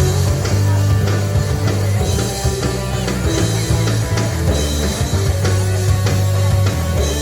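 Pop-punk band playing loud: electric guitar, bass and drum kit, with a heavy sustained low end and steady drum hits.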